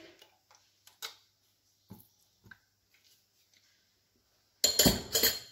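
A few faint clicks of a measuring spoon and plastic bottle being handled over a glass mixing bowl. About a second before the end comes a short, loud clatter of several quick knocks, the loudest sound.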